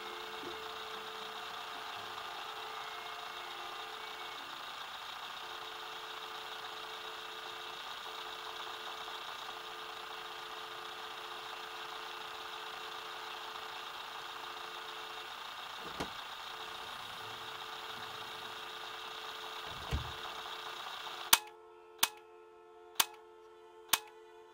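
A steady hiss with a low held hum, broken by a single click and later a soft thump; near the end the hiss cuts off suddenly, leaving a clock ticking about once a second.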